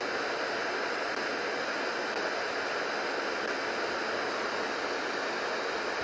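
FM radio static: a steady hiss from a Sihuacon R-108 portable receiver's speaker, tuned to an empty frequency around 64 MHz where no station is received.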